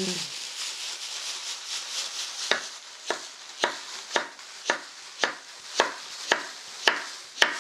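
Kitchen knife slicing carrots on a wooden cutting board, steady strokes about two a second from a couple of seconds in. Before them, a rustling hiss of red chili flakes (gochugaru) pouring from a plastic bag into a steel bowl.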